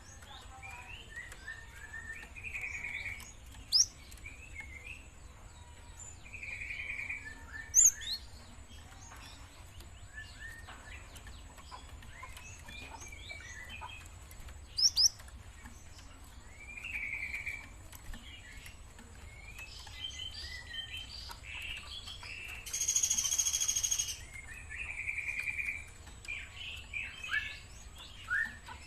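Young gelatik (Java sparrow) calling actively: scattered short chirps and twittering, with a few sharp, loud high notes. Later there is one harsher buzzing note about a second long.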